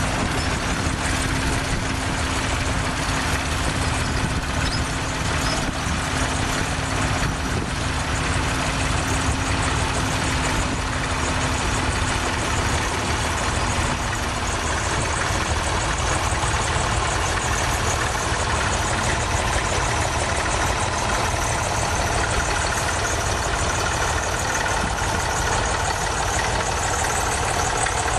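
Tractor engine running steadily, with a low hum that fades out about halfway through.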